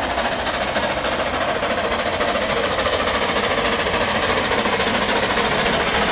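Narrow-gauge steam locomotive working hard as it approaches, its exhaust beating in a rapid, even rhythm over a steady rush of steam and noise.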